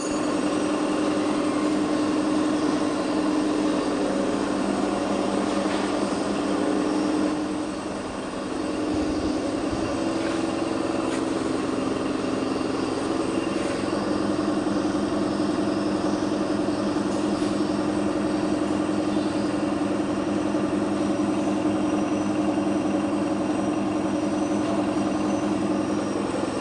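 Suzuki Katana engine running steadily after an overhaul, with a brief dip in level and pitch about eight seconds in before it settles back.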